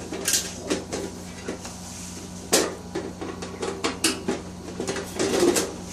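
Screwdriver working the cover screws out of a steel electrical panel board: a run of sharp, irregular metallic clicks and clinks of tool, screw and sheet-metal cover.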